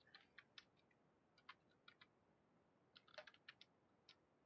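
Faint computer keyboard typing: scattered key clicks in short irregular clusters against near silence.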